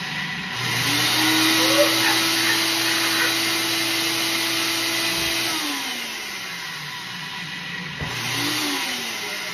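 Personal bullet-style blender motor spinning up and running steadily for about five seconds, then winding down, with a second short pulse near the end. The cup is packed too full with frozen ice-cream cubes.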